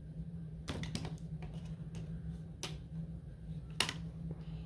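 A handful of sharp plastic clicks and knocks from power plugs and cords being pulled and handled: a quick cluster about a second in, another click midway and the loudest one near the end. A steady low hum runs underneath.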